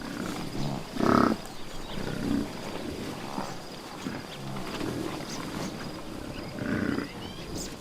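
Buffalo grunting and snorting: a series of short, low grunts a second or two apart, the loudest about a second in.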